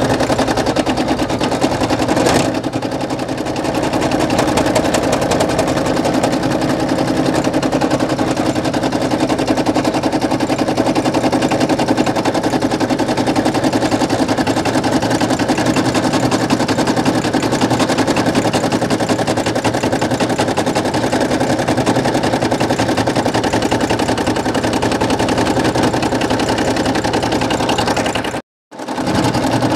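Brother PE800 embroidery machine stitching: a fast, steady rattle of needle strokes over the hum of its motor. It cuts out for a moment near the end.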